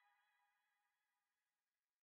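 Near silence: the faint tail of background music fading out.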